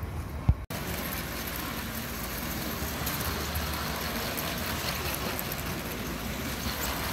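A single thump about half a second in, then steady, even rushing background noise of a large exhibition hall.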